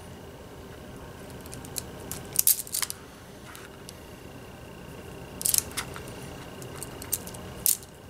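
Self-adjusting (automatic) wire stripper snapping shut and springing open as it strips insulation from the thin inner conductors of an XLR cable. There are a few sharp clicks in short clusters, about two and a half seconds in, about five and a half seconds in, and near the end.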